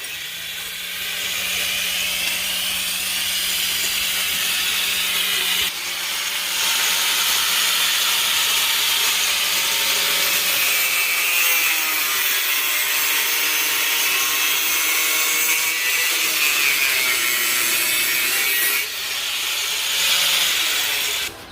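Power grinder running continuously against metal, with a whine that shifts under load; it eases off briefly twice, about six and nineteen seconds in.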